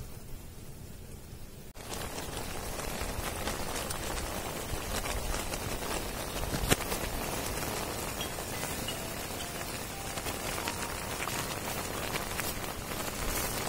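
Pieces of rat meat sizzling in a pot over a wood fire: a dense, steady crackle of fine pops that starts suddenly about two seconds in. Before it there is only a faint low rumble.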